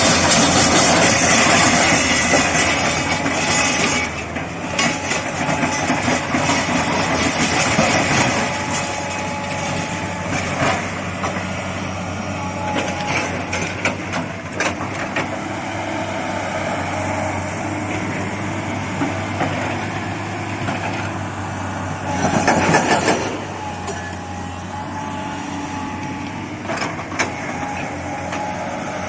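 Tata Hitachi 200 excavator's diesel engine running under work, with a steady low hum. It grows louder for the first few seconds and again in a short surge about three-quarters through, with scattered knocks and clanks throughout.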